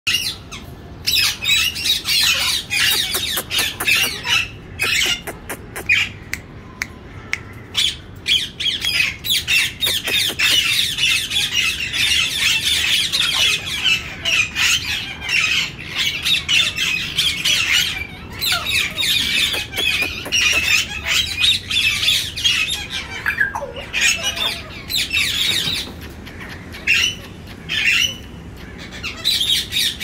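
African grey parrots squawking almost nonstop, a rapid string of harsh screeching calls with only brief lulls.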